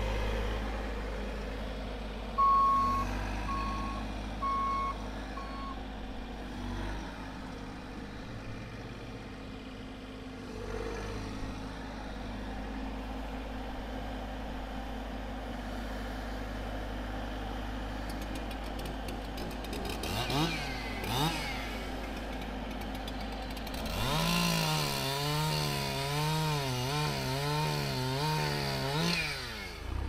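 Bobcat mini excavator's diesel engine running steadily, with four short beeps of an alarm a few seconds in. About twenty seconds in, a Husqvarna chainsaw is started, and for about five seconds near the end it runs loudly, its revs rising and falling.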